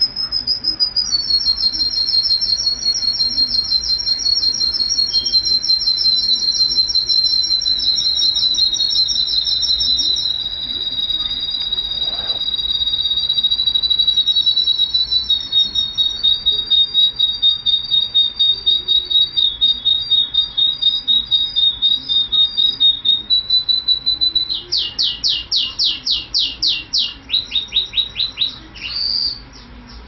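Russian song canary singing one continuous song of long, rapid rolling trills held on nearly one pitch, shifting to a new trill every few seconds. Near the end it breaks into a run of loud, fast sweeping notes, about five a second, and stops just before the end.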